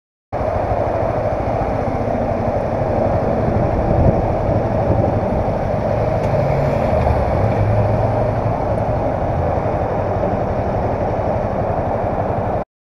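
Honda CBR300R's single-cylinder engine idling in slow stop-and-go, its low hum swelling briefly partway through as the bike creeps forward, under a steady rushing hiss. The sound cuts in and cuts off abruptly.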